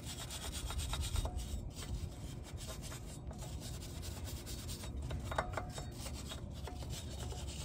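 Hand wire brush scrubbing rust off the steel wheel hub face of a Subaru Sambar, a steady rough back-and-forth scraping. It is cleaning the hub's mounting surface so the new brake rotor sits flat.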